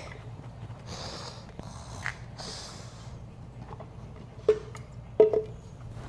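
Hand work refitting the rubber fuel hose on a small generator's carburetor: two short hissing puffs, then two sharp clicks a little apart near the end, which are the loudest sounds.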